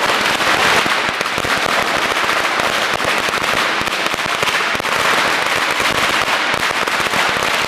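A long string of Chinese firecrackers going off in a rapid, continuous crackle of bangs.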